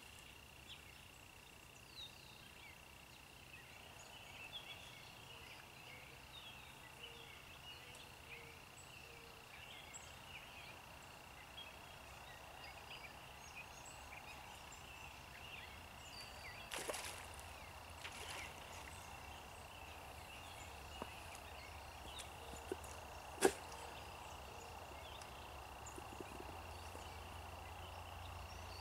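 Faint steady high-pitched insect trill, with scattered small chirps and a few sharp clicks, the loudest about two-thirds of the way in.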